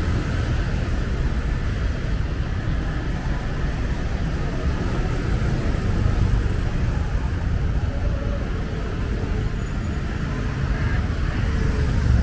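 Street traffic, mostly motor scooters with a few cars, passing steadily with a continuous low rumble.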